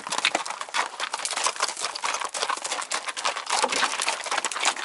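Horses' hooves clip-clopping over a rocky trail: a dense, irregular run of knocks and crunches from several horses walking.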